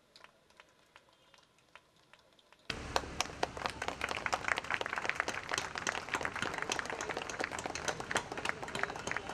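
Audience applauding: many hands clapping in a dense patter that starts suddenly about three seconds in, after a few faint scattered taps.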